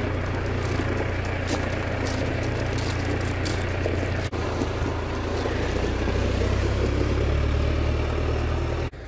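Steady low outdoor rumble with a hiss over the microphone and a few faint clicks. It breaks off for an instant about four seconds in and drops away sharply near the end.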